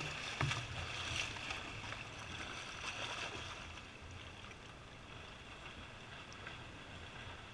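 Pool water splashing as a butterfly swimmer comes into the wall and turns, with sharp splashes in the first second or so. The splashing then grows softer as the swimmer pushes off and swims away.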